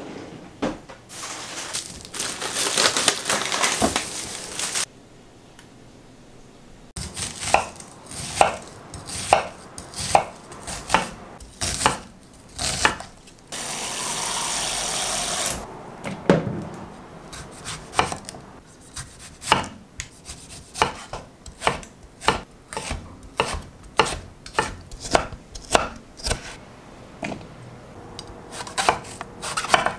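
Kitchen knife chopping on a cutting board: slow, evenly spaced chops, about two a second, through most of the stretch. A few seconds of loud hissing noise open it, and another shorter hiss comes about halfway.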